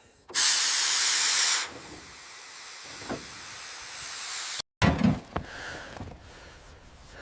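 Steam locomotive venting steam: a loud hiss bursts out, eases after about a second and a half to a softer hiss, then cuts off abruptly. A few dull knocks follow.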